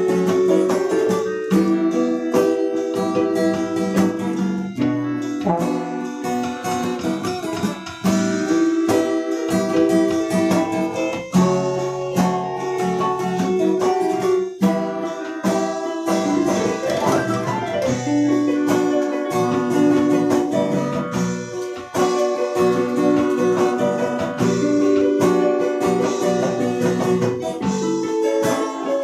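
Unamplified dangdut band playing: acoustic guitar strumming over held electronic keyboard notes, with frequent short percussive strokes.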